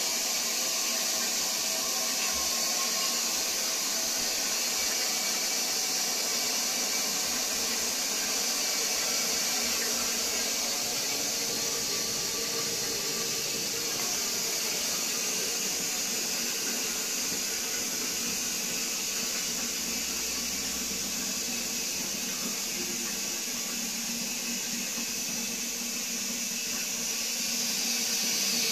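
Shires Rubberwell high-level toilet cistern refilling: a steady hiss of water running in through the inlet valve, a little louder near the end.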